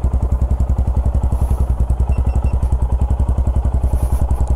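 Motorcycle engine running at a steady speed, with an even, rapid beat of about a dozen pulses a second.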